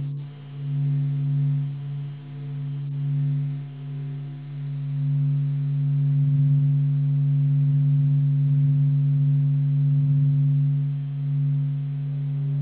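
Ambient background music: a drone of a few sustained low tones. It swells and fades slowly at first, then holds steady for a few seconds before swelling again near the end.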